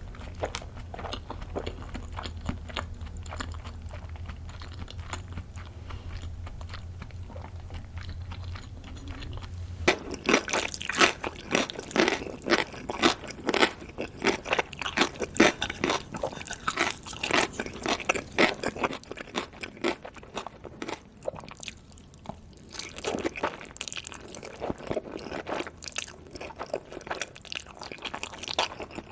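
Close-miked eating sounds of a person chewing Korean spicy noodles, with dense, irregular wet clicks of mouth and food. The chewing is soft at first over a low steady hum, then gets much louder and busier about a third of the way in.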